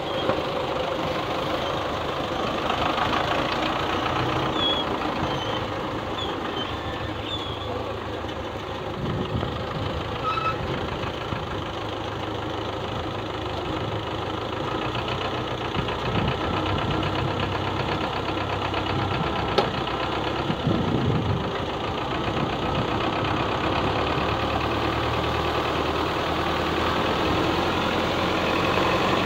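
Belarus tractor's diesel engine running steadily under load as it drags a levelling blade through a flooded field, with water and mud churning around the tyres and blade.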